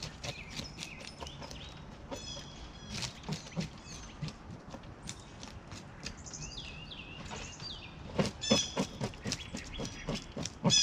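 Knife scraping and tapping on tilapia on a table: a run of short sharp scrapes and taps that grow louder and denser near the end. Birds chirp in the background a few times.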